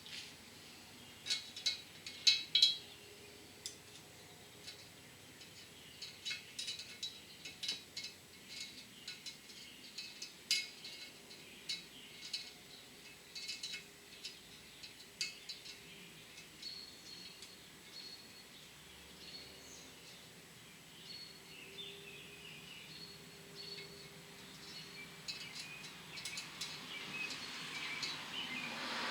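Small metal parts clicking and tapping: valve keepers, retainer and hand tools being worked on a cylinder head while keepers are fitted under a compressed valve spring. The clicks are irregular, with the sharpest ones about two seconds in, and short thin squeaks join in during the second half.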